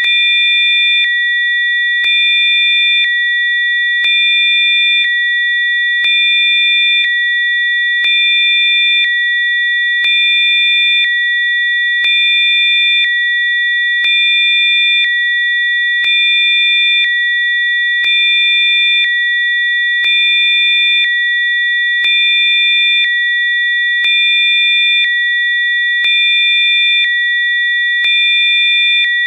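Synthesized sine tones of a sound-therapy frequency track: several steady, high-pitched pure tones held together. The level swells slightly for about a second out of every two.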